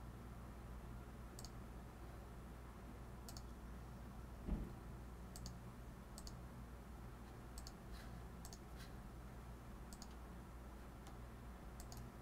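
Computer mouse clicking: about a dozen sharp single clicks scattered a second or two apart, over a faint steady hum. There is one soft thump about four and a half seconds in.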